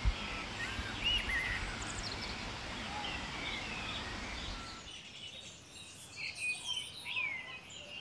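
Small birds chirping in short calls over a steady outdoor hiss; about five seconds in the hiss drops away and the chirps carry on alone.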